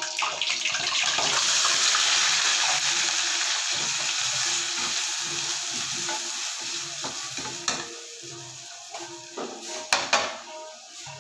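Grated food sizzling as it hits hot oil in a steel kadhai, loudest about two seconds in and then slowly dying down. Near the end come a few sharp clinks of metal against the pan.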